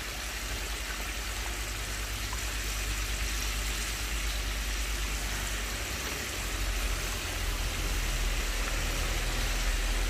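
Chicken pieces deep-frying in a cast-iron pot of hot oil: a steady, even bubbling sizzle, over a low rumble that grows a little stronger about halfway through.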